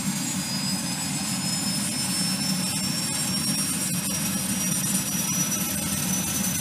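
Allison turbine engine of a Soloy-converted Cessna U206G running, a steady high whine that rises slowly in pitch over a low rumble.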